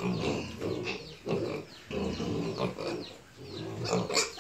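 Newly weaned piglets grunting in their pen, short low grunts one after another, louder and shriller near the end.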